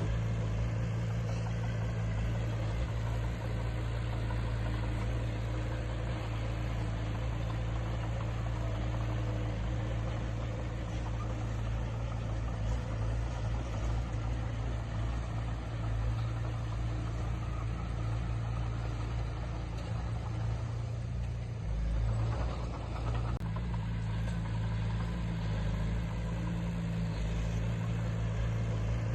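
Heavy diesel engine of earthmoving equipment running steadily with a deep, even drone. It briefly surges a little over 20 seconds in.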